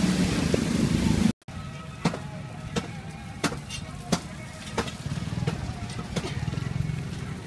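Oil sizzling as battered rolls deep-fry in a steel pan, over a steady low engine hum from street traffic, with a sharp click about every two-thirds of a second. The sound drops out for a moment about a second and a half in.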